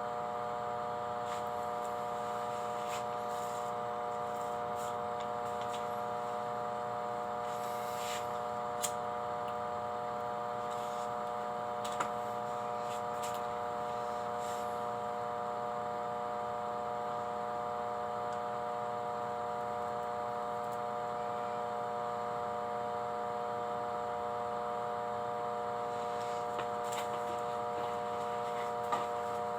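Steady electrical hum made of several fixed tones, with a couple of faint clicks.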